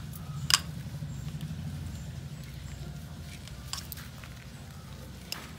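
Light handling sounds of coir rope being worked around a terracotta pot, with a sharp click about half a second in and a couple of fainter clicks later, over a low steady rumble.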